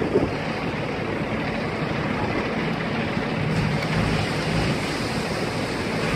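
Large building fire burning, a steady rushing noise, with the engine of a parked fire engine running underneath as a low rumble.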